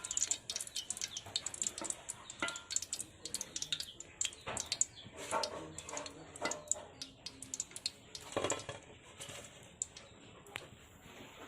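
Egg-coated rice balls frying in hot oil: an irregular run of crackles and pops.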